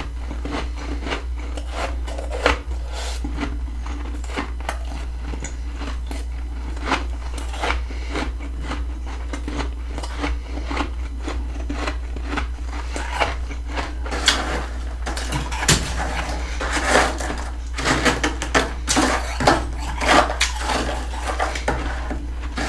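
Close-miked crunching and scraping of freezer frost, built up with a humidifier, as it is scooped and bitten. Crisp crunches come thick and fast in the second half, over a steady low hum.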